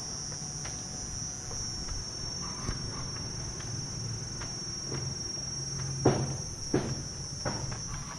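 Steady, high-pitched insect chorus in garden vegetation, with two thuds about six seconds in.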